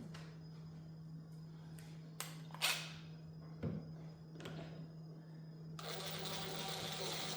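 A few light knocks of tools and wood being handled, then a handheld power drill starts running about six seconds in and keeps buzzing steadily. A steady low hum sits underneath throughout.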